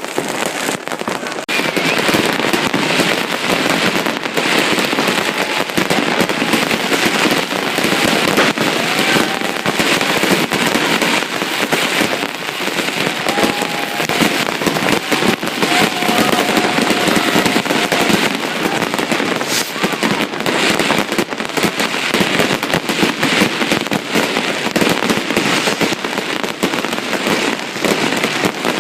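Massed New Year's Eve fireworks and firecrackers going off without a break, a dense crackle of many overlapping bangs and pops. A thin whistle sounds briefly near the middle.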